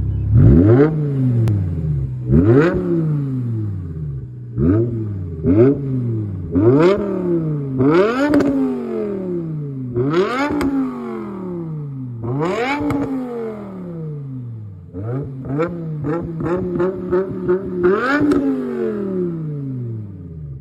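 BMW E60 M5's 5.0-litre V10 being revved over and over: each rev shoots up quickly and then falls slowly back toward idle. Near the end comes a run of quick, short blips, then one last full rev.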